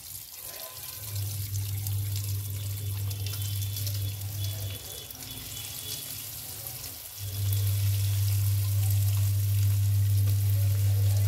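Hot oil sizzling steadily as breadcrumb-coated bread rolls deep-fry, with another roll lowered in near the end. Under the sizzle a loud low hum cuts out for a couple of seconds in the middle and then returns.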